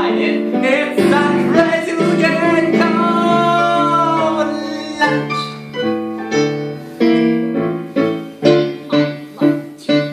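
Musical theatre song with piano accompaniment: a voice sings a line ending in a long held note, then the piano plays short chords about twice a second.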